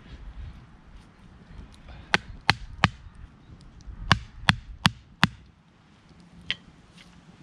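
Wood being chopped with a blade: three quick, sharp blows about a third of a second apart, a short pause, four more, then one lighter blow.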